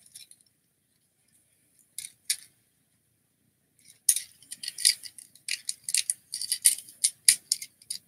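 Small plastic Transformers minibot toy being handled and transformed, its parts clicking and rattling: two clicks about two seconds in, then a quick run of clicks and rattles from about four seconds on.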